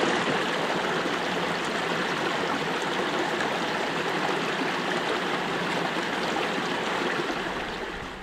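Shallow stream rushing over rocks and a small step of cascades: a steady rush of water that fades out near the end.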